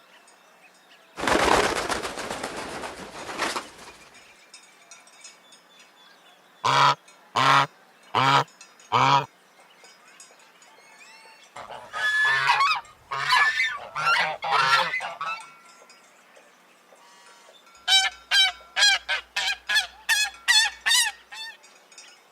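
Geese honking: four separate honks, then a cluster of overlapping honks, then a quick run of about ten short honks near the end. About a second in comes a loud noisy rush lasting a couple of seconds.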